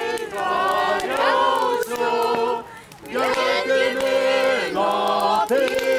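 Lithuanian folk ensemble singing a folk song together in long held notes, several voices at once. There is a short break between phrases about halfway through.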